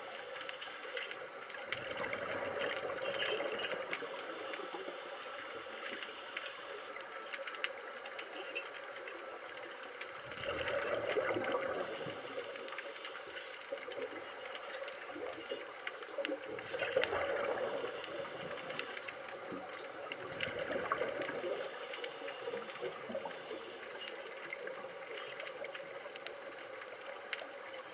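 Scuba regulator breathing heard underwater: exhaled air bubbling out in louder gurgling swells every several seconds, over a steady watery hiss.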